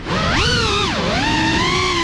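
FPV quadcopter's brushless motors and propellers whining with the throttle: the pitch dips at the start, swoops up and back down about half a second to a second in, then holds a steady, slightly wavering whine.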